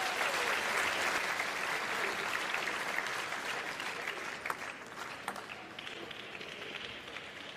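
Arena crowd applauding a won table tennis point, loudest at the start and fading over several seconds, with a few sharp clicks in the middle.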